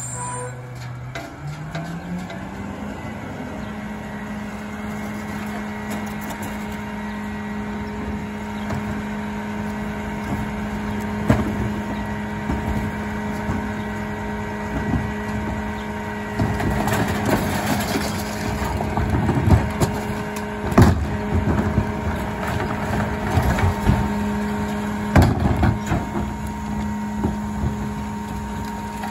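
Rear-loader garbage truck's engine dips in speed and climbs back in the first few seconds, then holds at a steady raised pitch while the packer works. Over it come loud bangs of recycling bins slammed against the hopper, and a stretch of rattling and crashing as recyclables tumble in.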